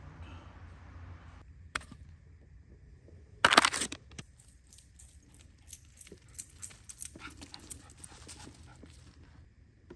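A small white terrier moving about on dry fallen leaves, with a run of quick light metallic jingles in the second half. A loud short clatter of several quick hits comes about three and a half seconds in.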